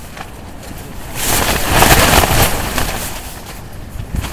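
A gust of storm wind buffeting a camping tent, the nylon walls flapping, with wind rumbling on the microphone. The gust builds about a second in and eases off near the end.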